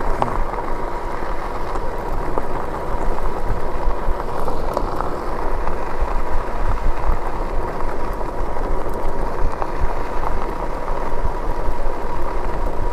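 Riding noise from a Lectric e-bike under way: a steady rumble of wind over the microphone and tyres rolling on the road, with a thin steady whine above it.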